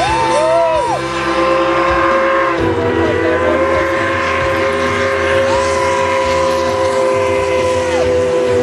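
Steam locomotive whistle blowing a long, steady chord of several notes as the train pulls in. A higher note swells in and dies away twice, once at the start and again near the end.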